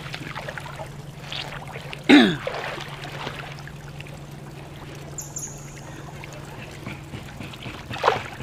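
Shallow seawater trickling and splashing around people sitting and wading in it, over a steady low hum. About two seconds in, a short loud voice cry falls in pitch, and a smaller sharp sound comes near the end.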